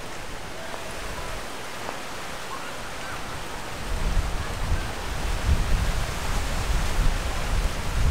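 Wind buffeting the microphone in uneven low rumbling gusts that begin about four seconds in and grow louder, over a steady seaside hiss of wind and surf.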